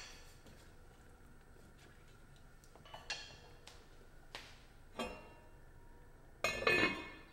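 A few light knocks and clinks of a heavy enamelled Dutch oven lid being handled, then a louder clatter near the end as the lid is set down onto the pot.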